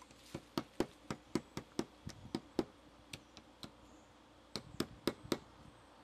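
Small hammer tapping the snipped tabs of a metal vent pipe flat against the solar heater's back, light sharp taps about four a second, then a pause and a quicker run of about five taps.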